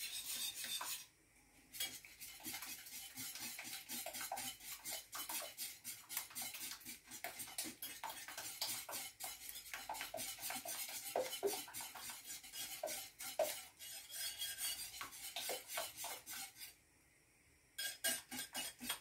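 Hand whisk beating eggs and sugar in a glass bowl: rapid clicking strokes of the whisk against the glass. It stops briefly about a second in and again near the end.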